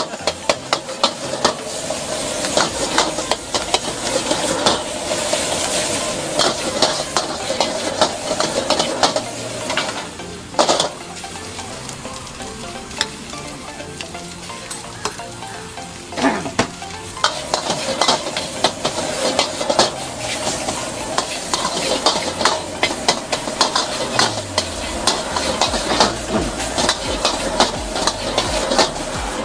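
Egg fried rice sizzling in a wok while a metal ladle scrapes and clacks against the wok in quick, repeated strokes. The clatter eases for a few seconds midway, then picks up again.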